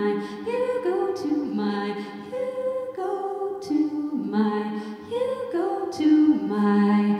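Woman singing a slow jazz ballad into a microphone, held notes stepping through short phrases, with a jazz guitar accompanying.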